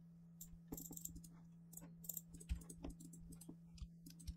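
Faint, irregularly spaced computer keyboard keystrokes and mouse clicks over a low, steady electrical hum.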